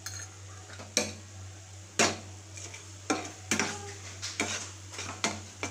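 Metal spoon stirring Maggi noodles in a metal wok, scraping and knocking against the pan roughly once a second, over a low steady hum.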